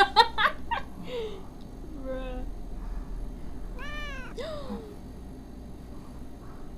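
A cat meowing several times from the anime's soundtrack, with one clear arching meow about four seconds in. A quick cluster of sharp knocks comes just before, at the very start.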